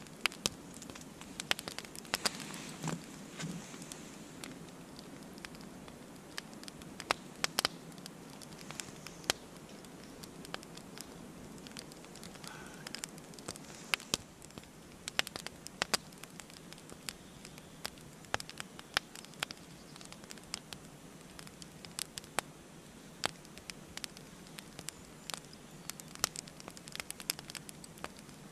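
Small wood fire crackling in a stainless twig stove: irregular sharp pops and ticks over a faint steady hiss.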